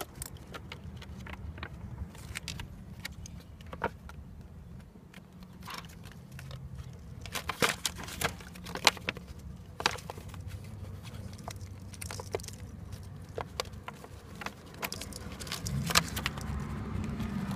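Scattered small clicks and rattles of wires, connectors and tools being handled, over a steady low hum.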